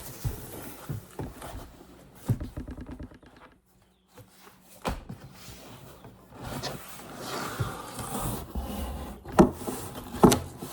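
A shipping box and its packing being handled and opened: rustling and scraping of cardboard and packing material with scattered knocks. There are two sharper knocks near the end.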